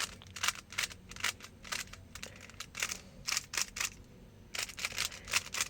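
Rubik's cube layers being turned in quick succession, a run of sharp plastic clicks and clacks as the final J perm algorithm is executed, with a brief pause about two-thirds of the way through.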